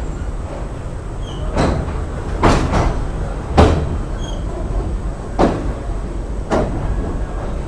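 Passenger train coach running with a steady low rumble, broken by sharp knocks and clanks at irregular intervals, about six in all.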